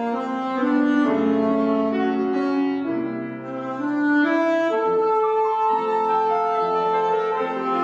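A solo wind instrument plays a slow melody of long held notes over piano accompaniment.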